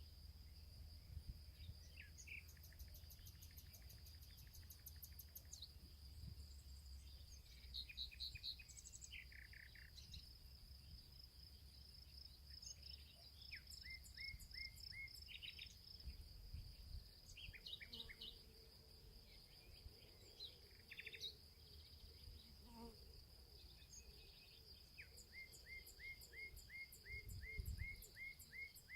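Faint outdoor ambience: several birds calling in short chirps, trills and quick runs of repeated notes, over a steady high-pitched insect drone.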